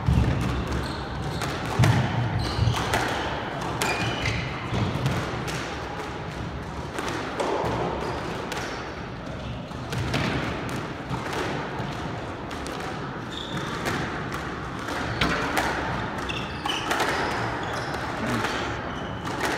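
Squash ball struck by racquets and smacking off the court walls, with footsteps and short shoe squeaks on the hardwood court floor; the loudest knocks come in the first couple of seconds.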